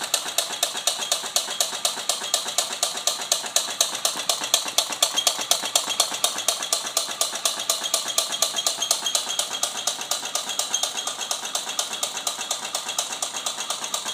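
Homemade candle-heated soda-can Stirling engine running, its mechanism clicking in a steady, rapid rhythm of about five or six clicks a second. The engine is pretty loud.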